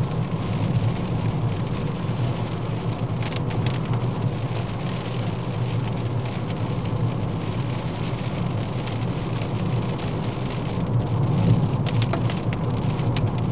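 Rain on a moving Ford Fiesta, with steady road and engine noise from the car underneath and a few short ticks.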